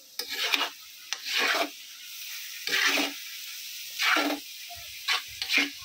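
Metal spatula scraping and tossing shredded cabbage and onion around a black wok, about six strokes a second or so apart. A steady sizzle of the frying vegetables runs underneath.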